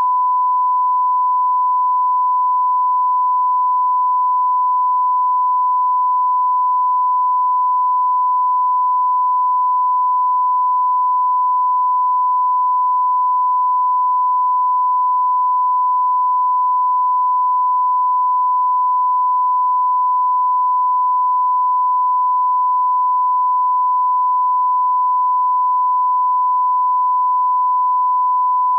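Steady, unbroken 1 kHz line-up tone played with colour bars at the head of a broadcast tape, a reference for setting audio levels.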